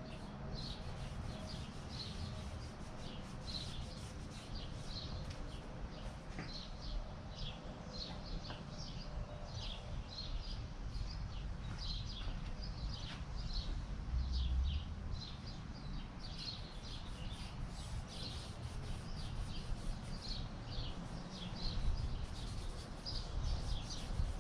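A bird chirping over and over, short high chirps about twice a second, over a low rumble.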